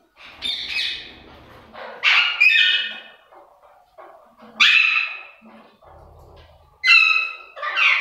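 Parakeets giving a series of loud, harsh screeching squawks, about five calls a second or two apart.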